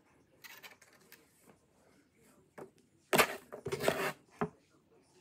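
Chenille pipe cleaners rustling and rubbing as they are pushed through and twisted together by hand, with a few small clicks and two louder rustling rushes about three seconds in.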